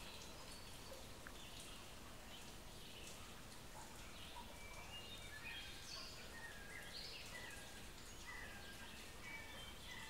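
Faint steady natural ambience, with a bird giving a series of short high chirps repeated a few times a second from about four seconds in.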